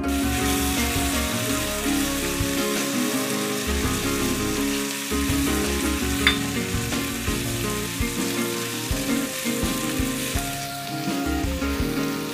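Chicken pieces sizzling steadily as they fry in ghee and butter in a nonstick kadai, with a silicone spatula stirring and turning them. They are being seared uncovered over a flame just above medium to brown them golden.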